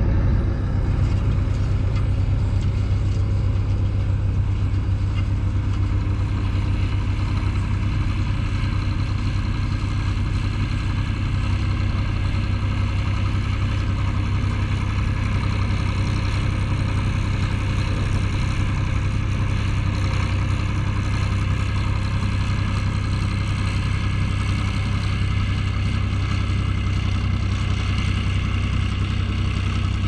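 Farm tractor's diesel engine running steadily close by at a constant speed, with a low hum that does not change.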